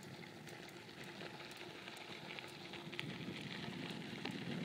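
Mountain bike tyres rolling over a dirt trail: a faint crackling hiss with small scattered clicks and rattles.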